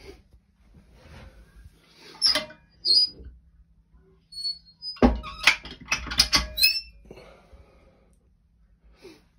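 Steel firebox door and latch of a homemade wood stove built from a hot water tank: metal squeaks twice as the door is opened about two to three seconds in. About five seconds in it is swung shut with a sharp metal clank, followed by a quick run of rattles and clicks from the latch.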